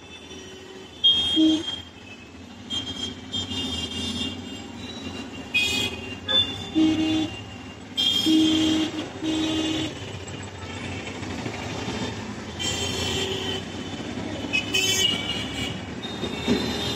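Town street traffic heard from inside a moving car: short horn honks from vehicles around it, several in quick succession about halfway through, over the steady hum of the car and road.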